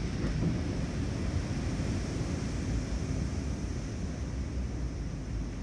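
Wind buffeting the microphone, a steady low rumbling noise.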